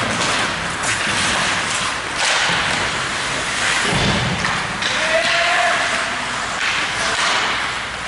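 Ice hockey play: skates scraping and sticks clattering on the ice, with a heavy thud about four seconds in, as of a puck or player hitting the boards.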